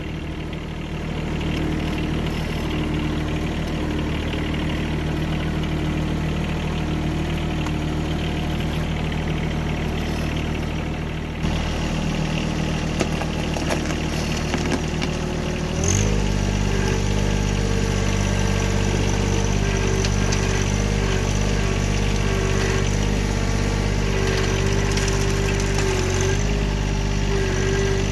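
Engine running steadily at idle, then stepping up to a higher, louder speed about sixteen seconds in and holding there.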